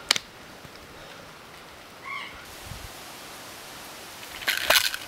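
Sharp rustling and rattling bursts about four and a half seconds in, as a hand picks up a plastic pill bottle from mossy ground. A single click comes at the start and a short high-pitched call about two seconds in.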